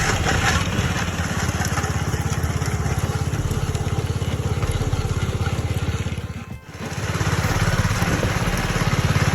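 Small gasoline engine of a walk-behind power trowel running at a steady speed, with a fast low pulse, as the blades finish the concrete slab. The sound drops out briefly about two-thirds of the way through, then resumes.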